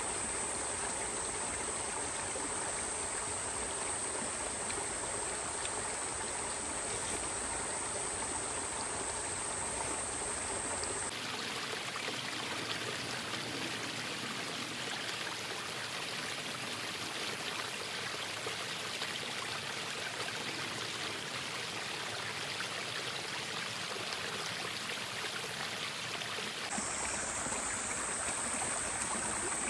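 Steady rush of flowing water. It turns thinner and brighter about eleven seconds in and returns to its fuller sound near the end.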